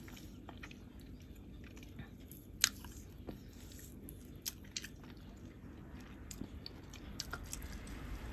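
Faint, scattered wet clicks and crackles of an orange being pulled apart into segments and eaten, with one sharper click about two and a half seconds in.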